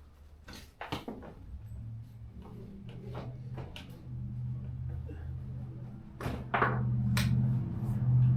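Scattered clicks and knocks of parts being handled, with a low steady hum that starts about a second and a half in and grows louder toward the end.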